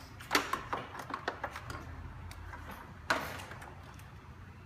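Wire harness and plastic parts being handled: a series of light clicks and ticks, with two louder rustling scrapes, one just after the start and one about three seconds in.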